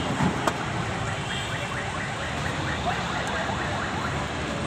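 Busy street din of traffic noise. Two sharp clicks come in the first half-second, and a fast run of short high repeated pulses sounds for a second or two in the middle.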